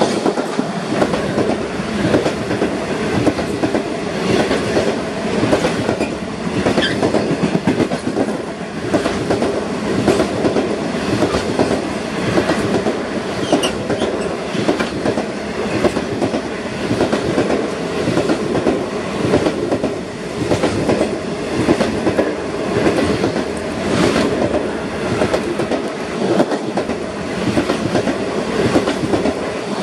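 Indian Pacific passenger train's stainless-steel carriages rolling past close by: a steady rumble and clatter of steel wheels on rail with a regular rise and fall, and a couple of brief high wheel squeals about a third and halfway through.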